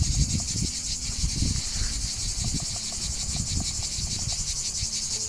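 Loud, steady chorus of insects, a dense high-pitched rapid pulsing without let-up, with an uneven low rumble underneath.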